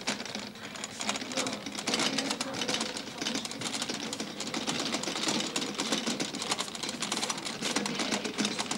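A serving trolley loaded with stacked china plates and cups rattling as it is pushed, the crockery clinking in a fast, continuous clatter.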